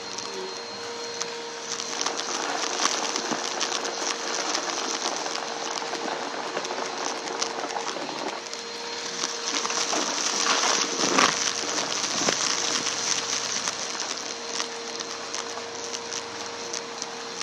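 Vacuum cleaner running with a steady motor hum while it sucks up crunchy debris from a rug, a dense crackling and rattling of particles that grows louder about ten seconds in.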